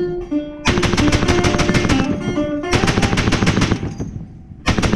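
Belt-fed machine gun firing three bursts at about ten rounds a second, the last burst starting near the end. Background music plays underneath.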